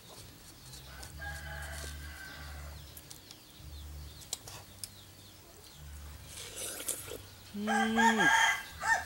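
A rooster crows once, loudly, about seven and a half seconds in, a single held call of about a second.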